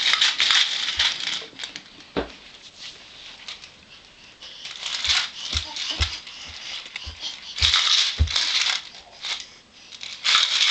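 A baby's toy rattle being shaken in several short bursts of rattling, with pauses and a few dull knocks in between.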